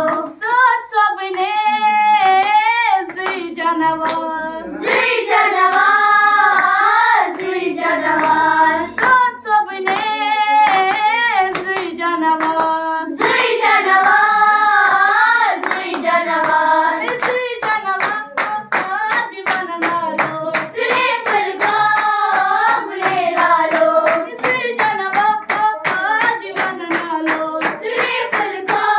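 A group of girls singing a song together into a microphone while clapping their hands in a steady beat. The clapping becomes more prominent about halfway through.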